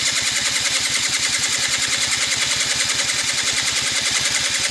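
Electric starter cranking a 1993 Yamaha Razz's 49cc two-stroke moped engine in a steady, rapid, even chug. The cold engine turns over without firing: a cold start after a winter's sitting, with no working choke.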